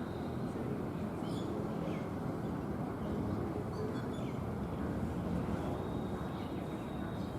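Outdoor ambience: a steady low rumbling hiss with faint, scattered bird chirps, and a thin high steady note near the end.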